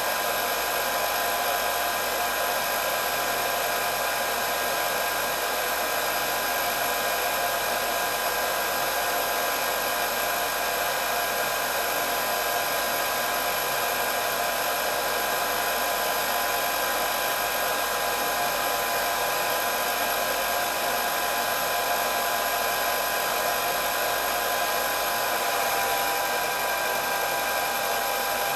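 Hair dryer running steadily: an even rush of blown air with a constant whine from the motor.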